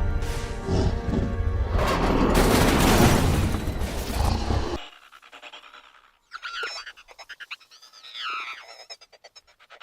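Loud film score mixed with sound effects, cutting off suddenly about five seconds in. Then quiet jungle ambience with short, warbling animal calls that rise and fall in pitch.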